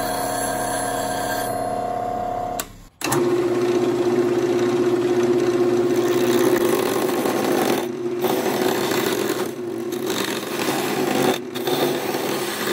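Bench grinder running, with a steady ringing tone as a lathe gouge is sharpened on its wheel. After a sudden cut about three seconds in, a wood lathe spins an ash blank while a gouge cuts it round: a steady motor hum under the rough scraping of the cut, which dips briefly a few times.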